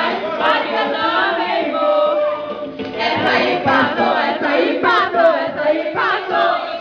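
A group of people singing and chanting together loudly, many voices overlapping.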